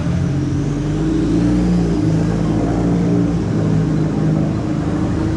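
A motor vehicle engine running steadily, a low hum that holds its pitch with only slight wavers.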